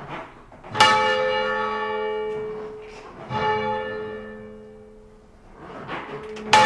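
Old tenor church bell swung full-circle on its rope, struck by its clapper three times about two and a half seconds apart, each stroke ringing on and fading; the last stroke is the loudest. Its note is roughly an A.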